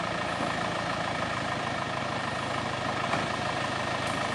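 An off-road vehicle's engine running steadily at an even level, with no change in revs.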